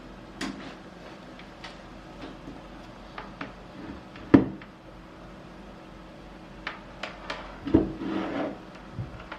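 Scattered clicks and knocks of test leads and wires being handled and set down on a wooden desk, with one sharper knock about four seconds in and a clatter with rustling near the end. A faint steady hum sits underneath.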